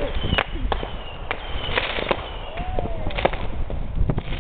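Amateur fireworks going off: a string of sharp bangs and cracks, roughly two a second, mixed with a few short high whistles.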